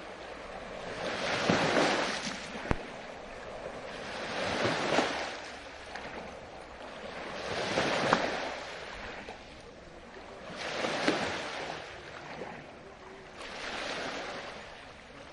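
Water washing and sloshing in surges that swell and fade about every three seconds, like waves lapping. There is one sharp tick about three seconds in.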